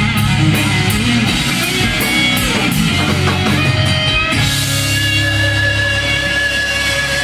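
Live rock band with electric guitar playing the closing bars of a song. A little past halfway the drums stop and the band holds one long sustained chord.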